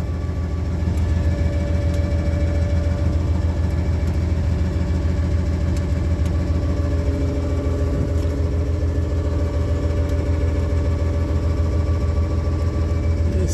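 An engine idling steadily, an even low running hum with no change in speed.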